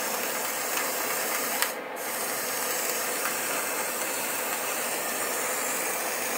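Smoke-generator heating element, powered from a 12 V battery, giving a steady sizzling hiss as it makes smoke. A click comes about a second and a half in, and the higher part of the hiss drops out for a moment just after it.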